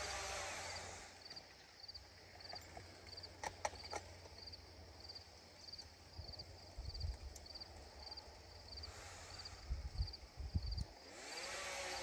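An insect chirping in an even rhythm, short pulsed chirps about two a second, over a low outdoor rumble. A broad rushing noise fills the start and swells again near the end, with a couple of sharp clicks just before the halfway point and a few low thumps near the end.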